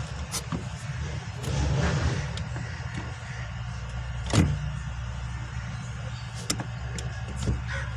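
Maruti WagonR engine running in a steady low hum, swelling briefly about two seconds in as the pedals are pumped. Scattered knocks and clicks from the pedals and the foot come on top, the loudest about four and a half seconds in.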